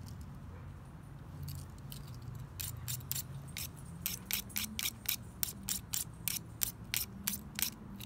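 A small stainless pocket-knife blade scraped against a hand-held sharpener in quick, even strokes, about four a second, starting a couple of seconds in: hand sharpening to grind the edge down. A faint steady low hum runs underneath.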